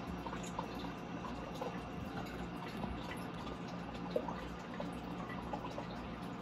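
Water trickling and dripping in small scattered plinks over a steady low hum, as from the water and pump of a turtle tank.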